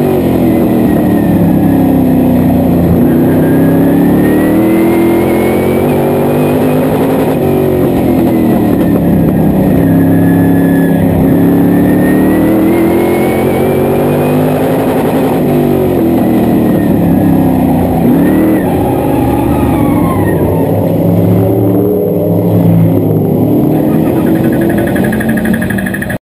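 Modified race car's engine heard from inside the cockpit at racing speed, its pitch rising and falling about every four seconds as it accelerates and lifts lap after lap. It cuts off suddenly at the end.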